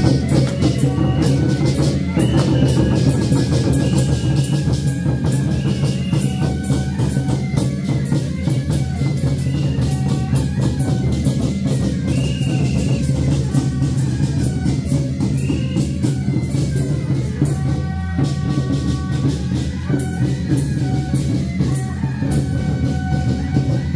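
Loud procession music with drums and a recurring high melody line, over a constant dense crackle of firecrackers.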